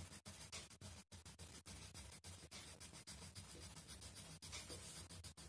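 Faint scratching of a plastic wax crayon rubbed back and forth across a colouring-book page, filling in colour.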